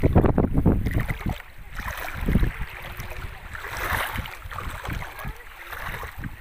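Wind gusting across the microphone in uneven rumbles, over the wash of small sea waves on the shore swelling and fading every second or two.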